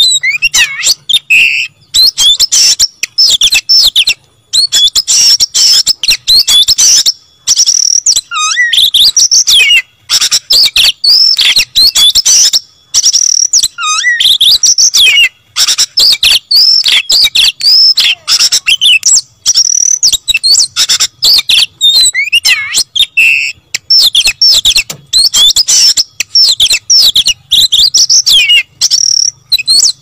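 Oriental magpie-robin (kacer) singing loudly and persistently: a rapid, varied run of high whistles, chattering phrases and sweeping notes, broken only by short pauses every few seconds.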